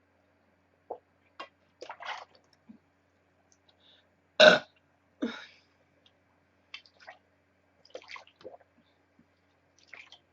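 A girl burping: one loud burp about four and a half seconds in, among several shorter, quieter sounds.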